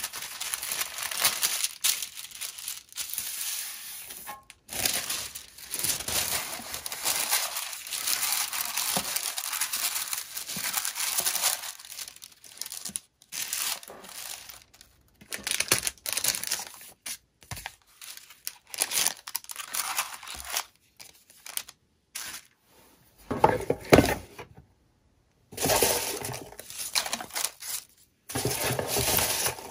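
Packaging crinkling and rustling as it is handled, in irregular stretches broken by abrupt silent cuts. A heavier handling bump comes about three quarters of the way through.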